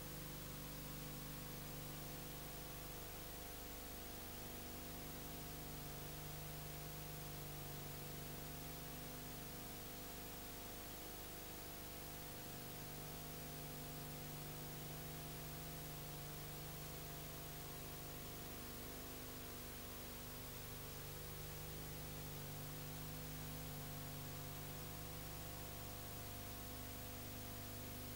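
Steady hiss with a low electrical hum and no other sound, the blank soundtrack of a silent home-movie transfer; the hum drops out and returns a few times.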